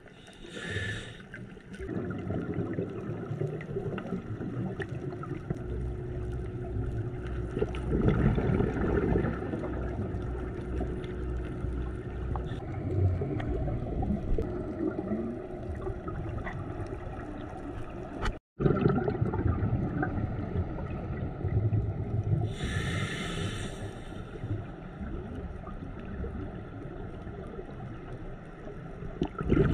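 Muffled underwater sound through a GoPro's dive housing: a low steady rumble with gurgling, broken by two short hissing bursts, near the start and about three-quarters in. The sound cuts out for a split second a little past halfway.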